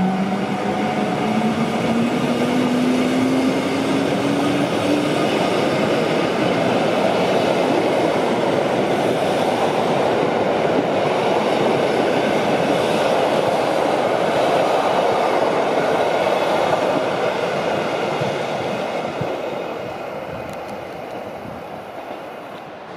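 Rhaetian Railway passenger train pulling out behind a Ge 4/4 III electric locomotive, its coaches rolling past at close range. For the first few seconds a rising electric whine from the accelerating locomotive fades away. The rolling noise of the wheels then fades as the train draws away near the end.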